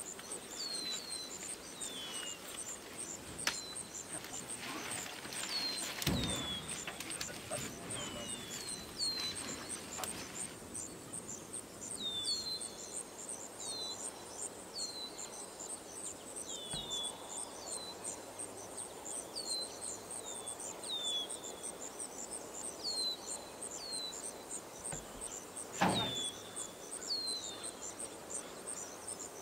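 Forest ambience: a steady, evenly pulsing high insect chorus, like crickets, with a bird repeating short falling chirps, often in pairs. A few dull knocks, the loudest near the end, come from pine logs being handled against the wooden bed of a truck.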